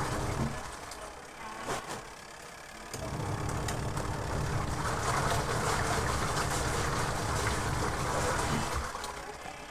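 Mika 10 kg twin-tub washing machine's wash motor running the pulsator, with water and clothes churning in the wash tub. It stops for about two seconds near the start, runs again, and pauses once more near the end, as the wash cycle alternates.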